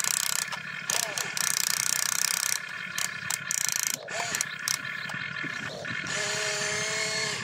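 Geared electric motors of a toy RC excavator whirring and grinding in repeated bursts as the boom and bucket move.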